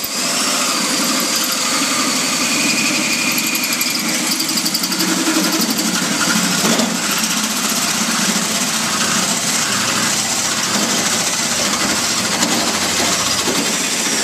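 Power drill running steadily with a 2¾-inch (70 mm) bit, cutting a hole through the vehicle's body. It stops suddenly near the end once the hole is through.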